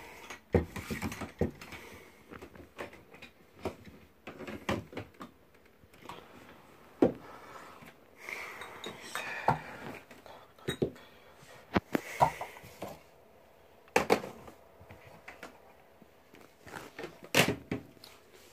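Handling noise: the phone rubbing and knocking against clothing and skin, as irregular clicks, taps and rustles.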